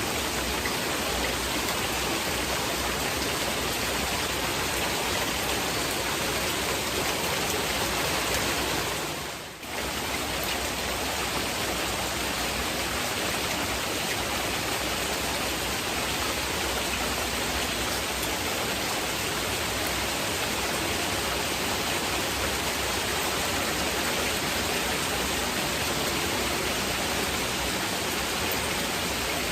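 Heavy rain blended with masking noise, an even, steady hiss. It dips briefly about nine and a half seconds in and comes straight back.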